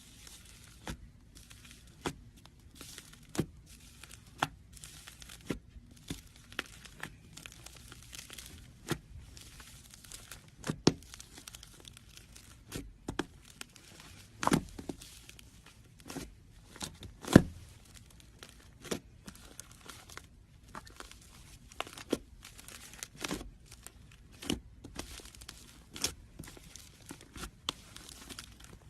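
Slime being played with by hand: stretched and squeezed, with irregular sticky clicks and sharp pops throughout.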